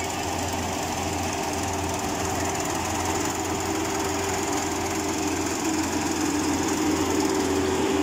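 FMWorld crawler combine harvester running as it cuts and threshes standing rice: a steady, loud mechanical drone of engine and machinery, growing louder near the end.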